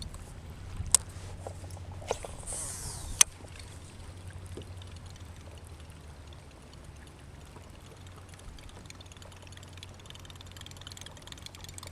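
Water lapping and trickling against a kayak hull, with sharp clicks about one, two and three seconds in and a brief high hiss just before the last click.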